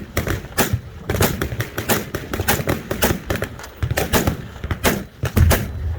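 Machine-gun fire: rapid, irregular bursts of shots that overlap one another, with a heavier low boom about five and a half seconds in.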